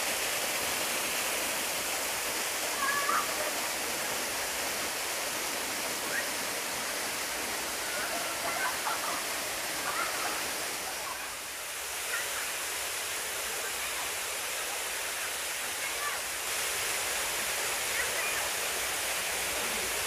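Waterfall pouring down a rock face and splashing onto the rocks below: a steady rushing of water.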